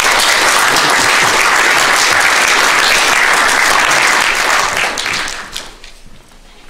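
Audience applauding, fading out about five and a half seconds in.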